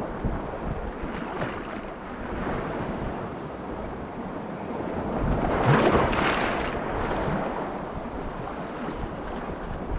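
Surf washing onto a rocky shore, with wind rumbling on the microphone; the wash swells louder for a couple of seconds around the middle.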